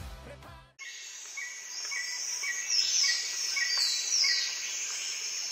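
Background music fades out in the first second, then a nature soundscape begins. A steady high insect hiss runs under a bird chirping about twice a second, with two falling whistled calls near the middle.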